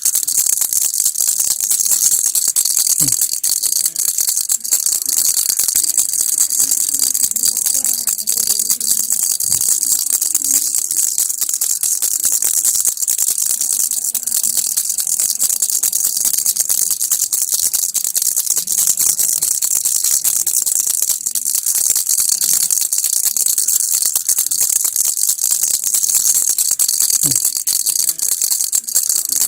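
Baby's toy rattle (kilukki) shaken without pause, a dense, steady rattling that runs on evenly.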